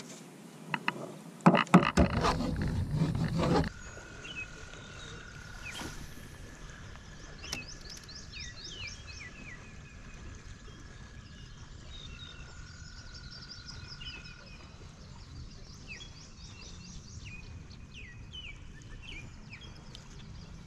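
A loud patch of knocking and rumbling in the first few seconds. Then wild birds sing, with many quick descending chirps and a steady high tone held for a couple of seconds, twice.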